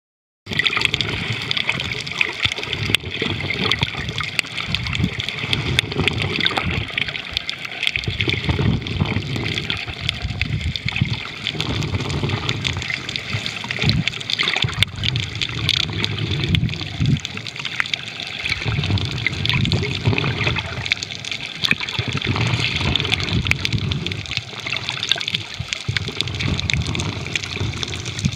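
Underwater recording: water gurgling and sloshing around the camera, with low swells rising and falling every few seconds.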